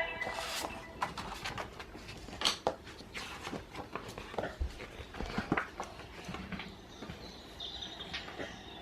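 Audio-drama sound effect of small footsteps in a wood: irregular light clicks, crackles and rustles like twigs and leaves underfoot, played back through a talking pen's speaker.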